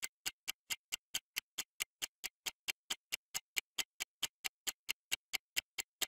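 Clock-like ticking of a quiz countdown timer sound effect, even sharp ticks about four a second, counting down the answer time.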